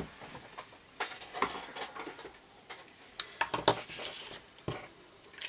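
Paper card, string and sticky tape being handled by hand: scattered light ticks and short rustles.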